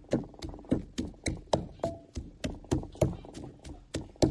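Wooden pestle pounding grilled garlic and chili in a clay mortar for a Lao spicy dipping sauce: a steady rhythm of knocks, about three to four strokes a second.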